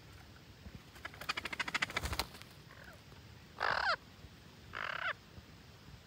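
Parrots calling: a rapid rattling chatter lasting about a second, then two short, harsh squawks about a second apart.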